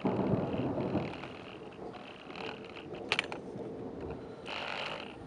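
Thunder rumbling: it starts suddenly, is strongest for about the first second, then fades to a low rumble. A sharp click comes about three seconds in.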